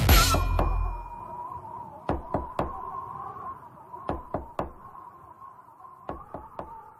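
A pop song's last loud hit dies away, leaving its outro: a faint steady tone with knocking sound effects, three quick knocks at a time, repeated three times about two seconds apart, before the track fades out.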